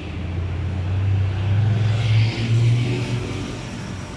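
A motor vehicle passing close by on the street, its low engine hum growing louder, peaking midway with a brief dip, then fading away.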